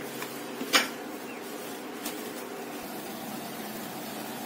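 A steady low background hum, with one sharp click or knock about three-quarters of a second in.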